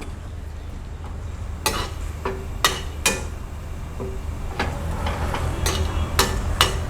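Whole garam masala spices sizzling in hot oil in a pan, stirred with a spoon that knocks and scrapes against the pan about nine times in the second half.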